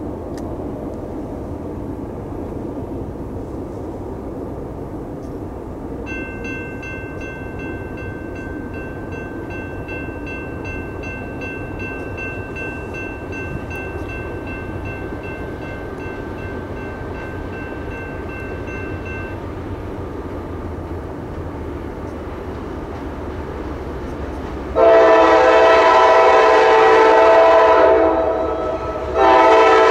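Diesel freight locomotive approaching with a steady low rumble. Near the end its air horn blows loudly, a long blast and then a second long blast.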